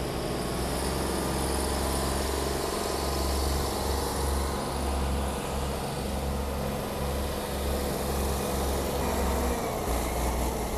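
Tractor diesel engine running steadily under load while pulling a heavily loaded sugarcane trolley.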